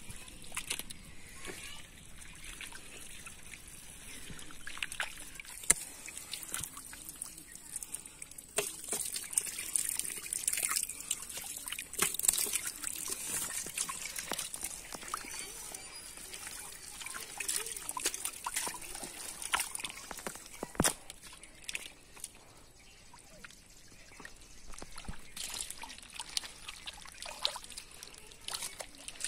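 Catfish wriggling in a shallow puddle of mud and water: wet slapping and splashing, with many small clicks and trickles.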